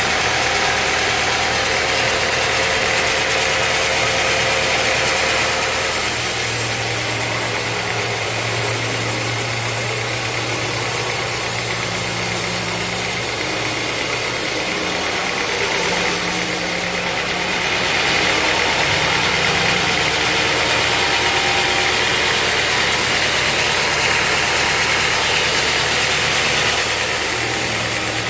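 Sawmill machinery running: a steady mechanical drone with a low hum and a strong hiss, its tone shifting several times.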